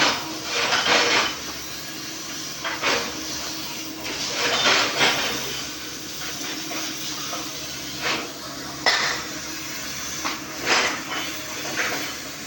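Demolition work: irregular bursts of crashing and scraping debris, a dozen or so, over a steady low hum.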